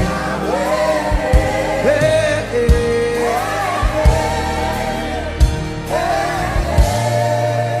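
Gospel worship music: sung vocal lines, with a choir, over a steady drum beat.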